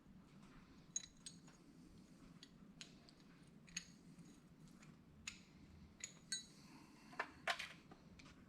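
Scattered light metallic clicks and clinks of small hand tools and battery-cable hardware being handled, some with a short high ring, the loudest pair near the end.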